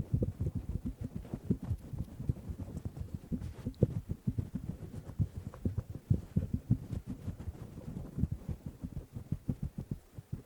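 Fingers scratching a towel-covered microphone: rapid, irregular, muffled low rubbing strokes, several a second.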